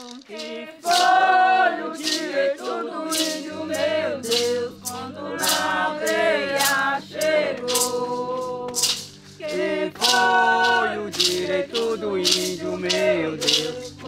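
Group of voices singing a chant together, with a shaker such as a maracá keeping a steady beat.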